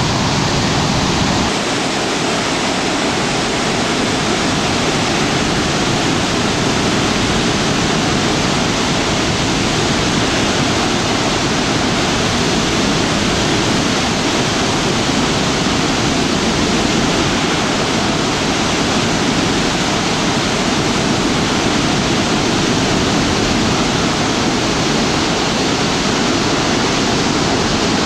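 Floodwater spilling over a hydroelectric dam: a loud, steady rush of water.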